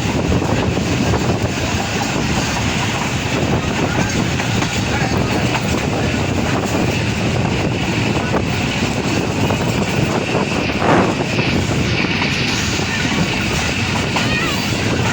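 Passenger train running at speed, heard from on board: a steady rumble of wheels on the rails with clickety-clack from the rail joints. There is a brief, louder burst about eleven seconds in.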